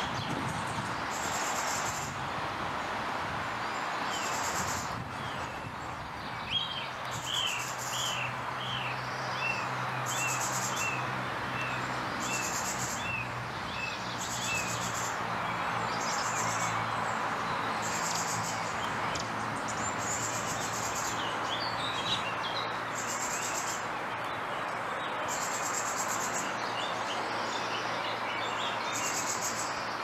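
Thrush calling in a tree: a run of short, quick chirping notes, repeated in a string, with fainter scattered notes later. Under it a steady background hiss and a high buzzing pulse recurring every second or two.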